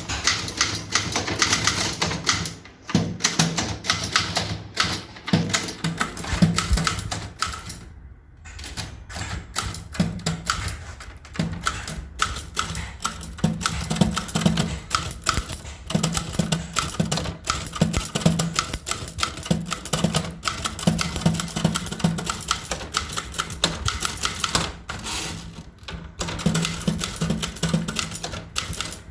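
Mechanical typewriter being typed on: a rapid, continuous clatter of key strikes with a few short pauses.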